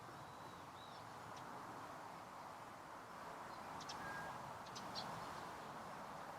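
Faint outdoor ambience: a steady low hiss with a few brief, faint bird chirps, a small cluster about four to five seconds in.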